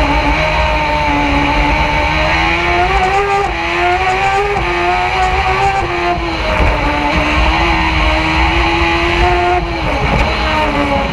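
Open-wheel single-seater race car's engine, heard onboard, running hard at high revs. Its pitch climbs and falls repeatedly as the car accelerates and eases, with a brief drop about ten seconds in as the throttle is lifted.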